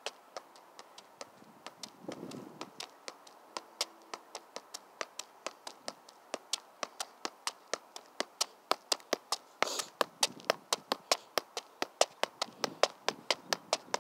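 Soccer ball being juggled off the feet: a steady run of sharp taps, one for each touch of shoe on ball, about four a second, and louder in the second half.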